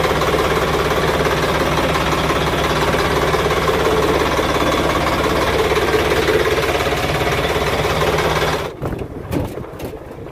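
Inboard marine diesel engine of a river ferry running steadily just after an electric push-button start, heard close up. About nine seconds in it becomes quieter and less even.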